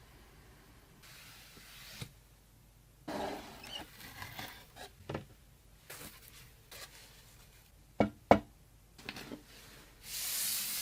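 Computer hardware being handled during assembly: a scatter of small clicks and knocks, with two sharp clicks close together about eight seconds in, and a short hiss near the end.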